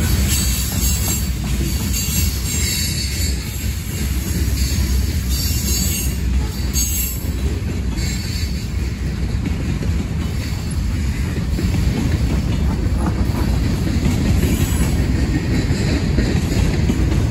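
Mixed freight train cars rolling past: a steady, loud rumble of steel wheels on rail, with high wheel squeal over the first several seconds.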